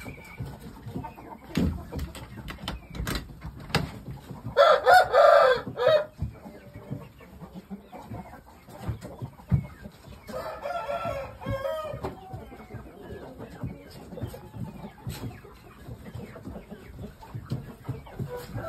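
Rooster crowing twice: a loud crow about four and a half seconds in and a quieter one about ten seconds in. Scattered short knocks in between.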